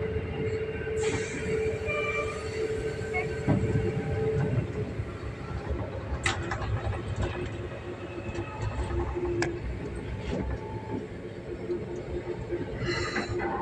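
Passenger train running, heard from inside the carriage: a steady rumble of the wheels on the rails with a humming tone and scattered short clicks and squeaks.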